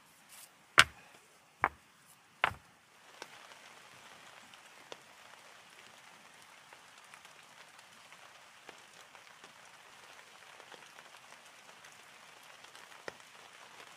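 Three sharp clacks in the first two and a half seconds as rounded river stones are set down against one another. Then steady rain pattering, with scattered light ticks and one sharper tick near the end.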